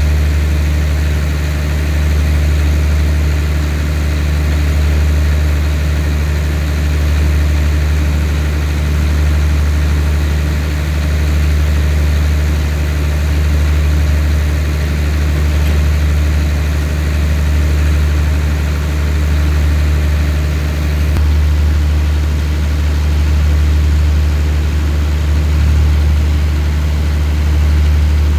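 Diesel engines of a stationary passenger train idling: a steady low hum that swells gently up and down.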